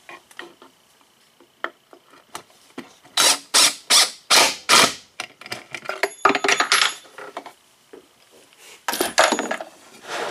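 Cordless impact driver on a long bit extension driving a pocket screw into plywood in short trigger bursts: five quick bursts about two and a half a second a little past three seconds in, then longer runs with a thin high whine around six and nine seconds in.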